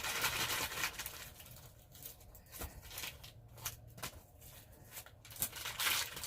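Plastic candy packaging being handled and crinkled: a continuous rustle for about the first second, then scattered small crackles and clicks.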